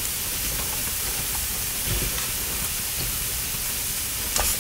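Sliced eggplant and chayote sizzling in a hot wok: a steady hiss, with a couple of light clicks near the end.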